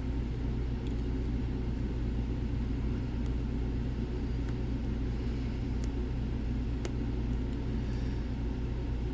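Steady low rumble with a background hum, and a few faint ticks of a lock pick working the pins of a Lockwood Twin padlock.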